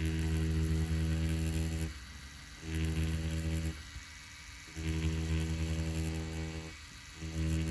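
FK Irons Spectra Flux rotary tattoo pen running with a steady low buzz, stopping and starting three times in runs of one to two seconds as lines are put into an orange's peel.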